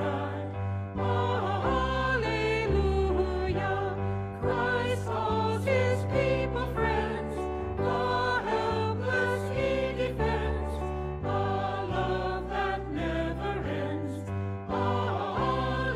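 Church music: a choir singing with instrumental accompaniment, over low bass notes that change every second or so.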